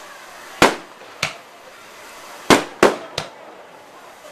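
Fireworks going off in a display that is misfiring: five sharp bangs at irregular intervals, two of them in quick succession past the middle.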